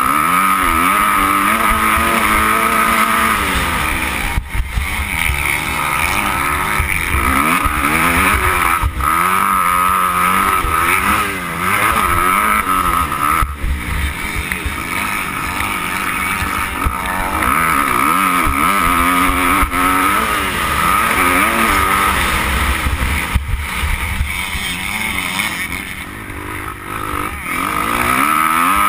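Dirt bike engine under hard acceleration, heard from on the bike: the pitch climbs, drops at a gear change or throttle chop, and climbs again, over and over.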